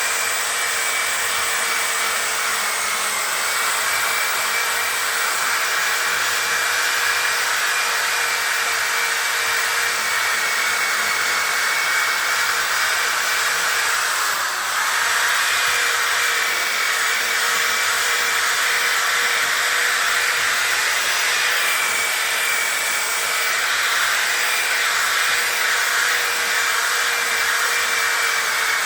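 Handheld electric power tool spinning a foam buffing pad with cutting compound on a plastic headlight lens: a steady motor whine with a short dip about halfway through, cutting out near the end.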